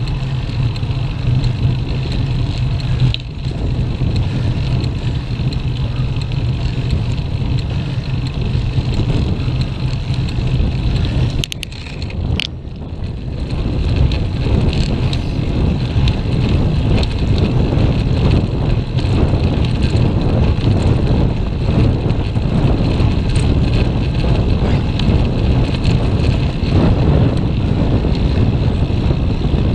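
Wind rushing over the microphone of a camera on a moving bicycle, over a steady road rumble. A few sharp clicks and a brief drop in the noise come about twelve seconds in.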